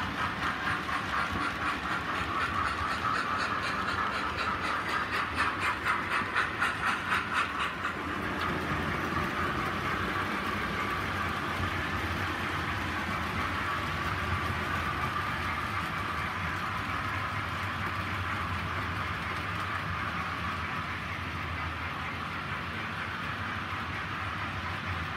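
Model railway coaches running past close by, their wheels clicking quickly and rhythmically over the rail joints. After about eight seconds this gives way to a steady running hum of model trains that eases off slightly toward the end.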